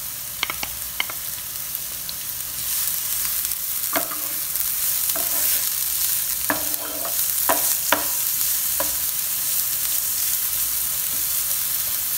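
Chopped onion and garlic sautéing in hot olive oil in a non-stick frying pan. A steady sizzle grows louder a few seconds in, and a wooden spoon knocks against the pan as the pieces are stirred.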